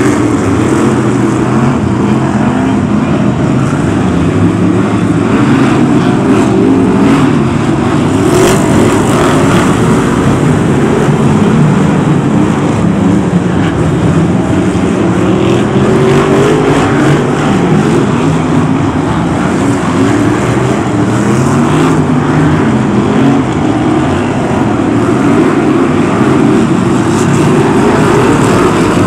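Several BriSCA F1 stock cars' V8 engines racing as a pack, loud throughout, their revs rising and falling as the cars lap the bends.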